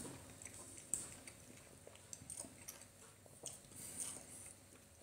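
A man chewing a spoonful of stuffed pepper with rice, close to the microphone: faint, irregular mouth sounds with small clicks, the clearest a little under a second in.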